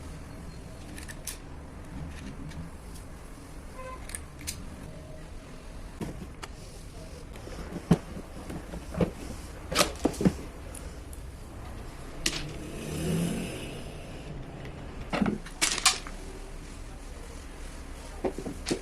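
Scattered clicks and knocks at irregular intervals, the loudest in two clusters, over a faint steady low hum.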